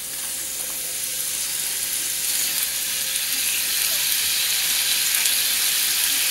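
Onion half-rings frying in hot vegetable oil in a frying pan: a steady sizzle that grows slightly louder.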